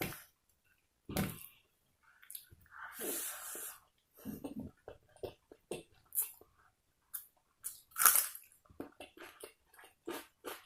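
Close-miked sounds of a person chewing and eating, likely the biryani and chicken kosha, in irregular short bursts. There is a longer noisy stretch about three seconds in, and the loudest bite comes about eight seconds in.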